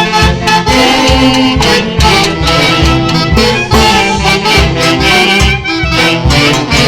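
A folk orchestra playing an up-tempo tune, with melody instruments and brass over a steady bass beat.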